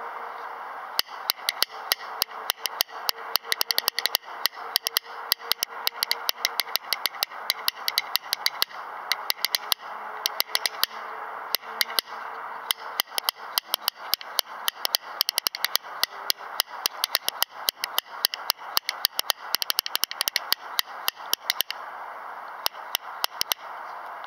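A pair of Honduran rosewood rhythm bones played in one hand, giving a long run of crisp, clear clacks, several a second in rolling rhythmic clusters, with a brief pause near the end. A steady hiss lies underneath.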